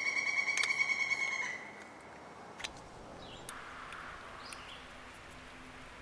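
A high, steady animal call with a slight fast pulse that stops about a second and a half in, followed by only faint small clicks.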